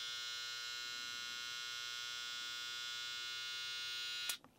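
BaByliss FX+ cordless trimmer's N1 brushless motor running at a steady speed of about 7,200 rpm, a steady hum with many overtones, switched off abruptly near the end.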